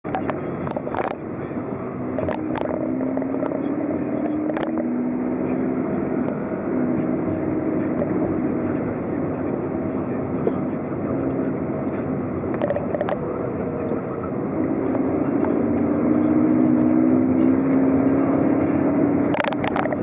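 Car engine and tyre noise heard from inside a moving car, the engine note rising several times as it pulls away and picks up speed, with a few brief knocks.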